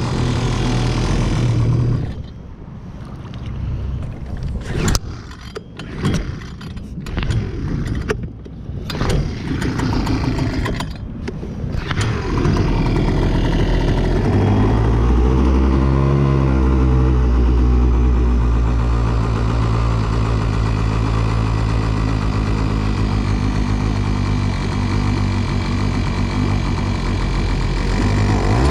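Brand-new HangKai 3.6 hp two-stroke outboard running, then faltering about two seconds in and firing unevenly in bursts for about ten seconds. It then catches and runs steadily again, with a brief rise in revs in the middle.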